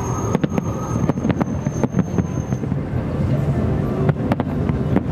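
Aerial fireworks shells bursting at a distance: a scattered string of sharp bangs and cracks over a steady background rumble, with a thin high steady tone that stops about halfway.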